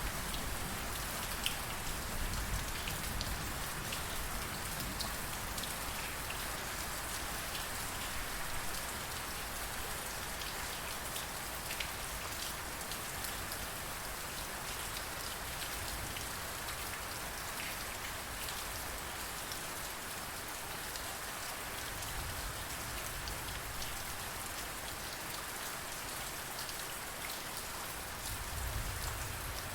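Steady rain in a thunderstorm: a dense, even hiss of falling drops with scattered sharper drip ticks, and low rumbles of distant thunder swelling near the start and again near the end.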